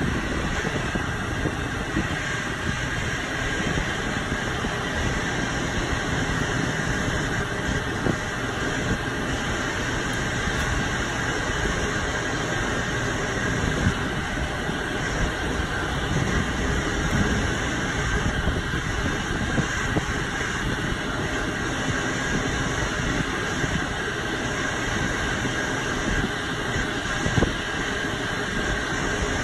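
Steady mechanical running noise from a RORO ferry's vehicle-ramp machinery as the folding ramp is lowered on its wire ropes. There is a low rumble with a faint high whine over it, and a brief knock about fourteen seconds in and another near the end.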